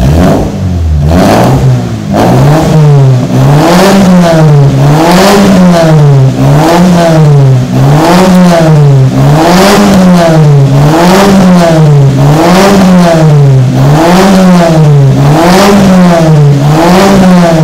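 Proton Satria 1.3's four-cylinder engine being revved over and over through a newly fitted full stainless-steel exhaust system and stainless extractor. The revs rise and fall in a steady rhythm, about once a second.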